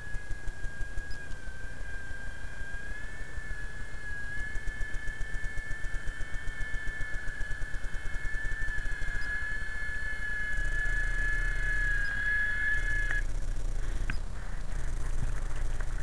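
Radio-controlled helicopter flying, its motor and rotor giving a steady high whine with a quick regular pulsing. The whine rises a little, then cuts off suddenly about thirteen seconds in.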